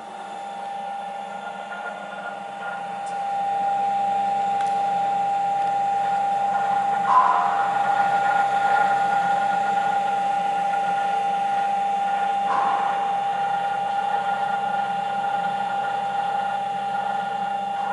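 GOMAD WF 20 horizontal boring machine running unloaded, its electric motor and spindle chuck spinning with a steady whine that grows louder a few seconds in. Two short noises interrupt it briefly around the middle.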